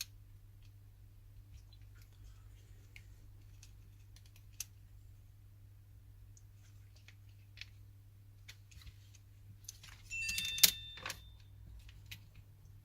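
Scattered faint clicks and taps of small plastic parts being handled as the PS4 controller's circuit board is worked loose, over a low steady hum. About ten seconds in comes a louder clatter of clicks with a brief ring.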